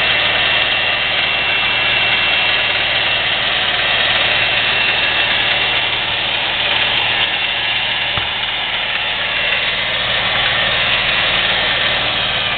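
Milwaukee 4210 magnetic-base drill press motor running steadily with no load, a constant whir that holds even throughout.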